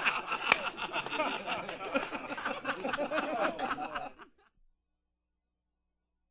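A man laughing, with short snickering breaths, stopping abruptly about four seconds in.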